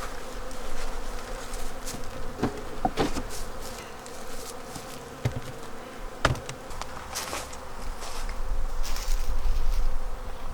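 Honeybees buzzing steadily around an open hive, with a few sharp knocks of hive equipment being handled, about two and a half, three and six seconds in.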